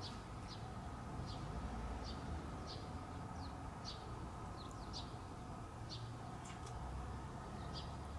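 A small bird chirping over and over, short high falling chirps about once or twice a second, over a steady low background hum.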